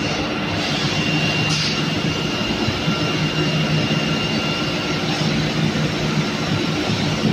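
Spunbond nonwoven production line running: a steady machine drone with a constant low hum and a thin high whine. A brief hiss comes about a second and a half in.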